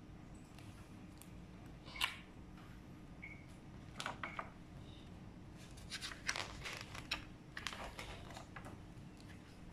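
Pages of a large glossy hardcover book being turned and pressed flat by hand: short paper rustles and taps, a sharp one about two seconds in, then a busier patch of rustling in the second half.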